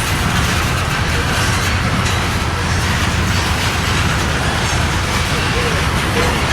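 Norfolk Southern train going by, a steady loud rumble of rail noise without a break.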